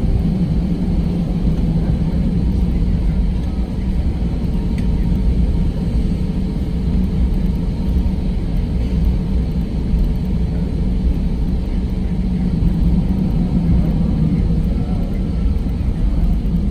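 Steady low rumble inside the cabin of an Airbus A320 taxiing on the ground, its jet engines running with a faint steady whine over the rumble.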